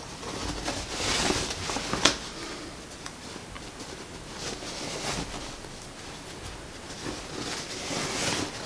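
Cotton wax-print fabric rustling and rubbing as hands work elastic on a safety pin through a skirt's waistband channel, gathering the fabric. The rustle swells about a second in, again around five seconds and near the end, with one sharp click at about two seconds.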